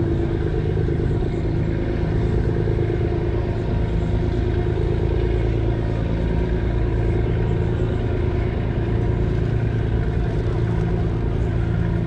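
An engine running steadily: an even, low hum over constant background noise.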